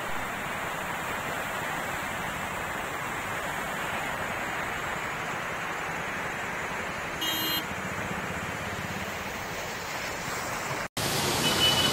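Steady rush of muddy floodwater, heard as an even hiss. A short high beep sounds about seven seconds in, and the sound cuts off abruptly near the end.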